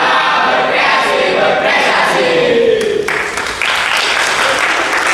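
A group of young people's voices shouting a chant together, then clapping and applause from about three and a half seconds in.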